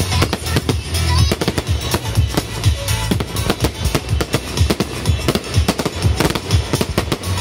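Aerial fireworks firing in a dense volley: many shell bursts, launches and crackles in quick succession, over music.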